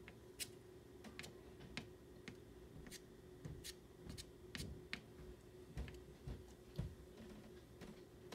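Pastel stick scratching across paper in a string of short, irregular strokes as colour is laid onto a small study. A faint steady hum runs underneath.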